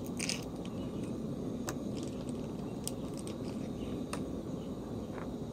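Camping canister gas stove burner running with a steady low hiss under a covered pan. A short rustle near the start and a few light clicks and taps come from handling things at the table.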